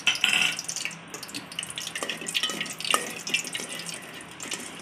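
Whole spices (cloves, cinnamon and cardamom) sizzling and crackling in hot ghee in an aluminium pot, stirred with a spoon.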